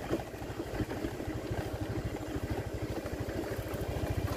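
Small motorcycle engine running steadily while being ridden, a rapid, even putter of engine pulses.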